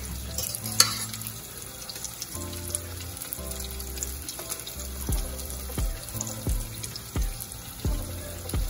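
Background music with sustained bass notes, and from about five seconds in a steady beat of roughly three thumps every two seconds, over the low hiss of soup simmering in a stainless steel pot. One sharp clink a little under a second in, from a fork against the pot.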